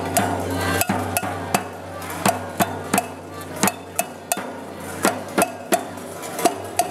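Marching bass drum beaten by hand in a steady repeating rhythm of sharp strikes, about two a second.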